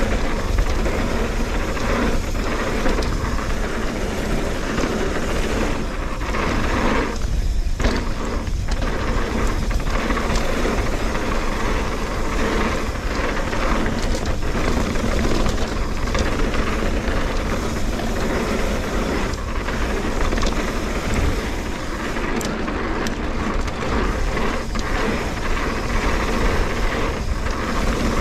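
Trek Fuel EX 8 full-suspension mountain bike ridden along a dirt singletrack: continuous tyre noise and many small knocks and rattles from the bike over bumps, with wind buffeting the helmet or chest camera's microphone.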